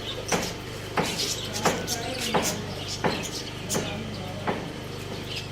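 Small pet birds chirping in short high notes, over a regular series of sharp knocks, about one every 0.7 s, and a steady low hum.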